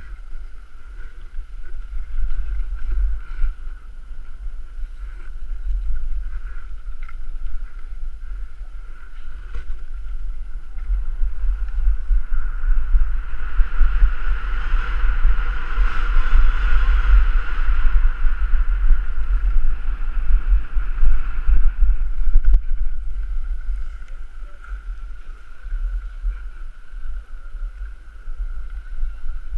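Wind buffeting the microphone of a camera carried by a skier on a downhill run, a heavy steady rumble, with the hiss of skis sliding over packed snow that grows louder for several seconds in the middle of the run.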